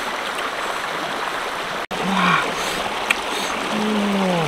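Shallow mountain stream rushing steadily over rocks. A man's voice twice gives a short falling vocal sound, once just after a momentary dropout a little under halfway through and again near the end.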